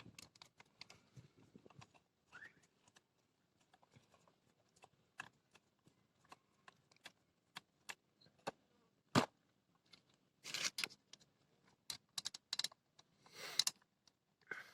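Metal parts and tools being handled during reassembly of a brush cutter's clutch: scattered sharp clicks and clinks, one louder knock about nine seconds in, and short rattling scrapes near the end.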